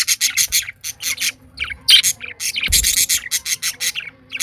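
Pet budgerigars chattering in a rapid run of short, high chirps, with one dull low bump a little past halfway.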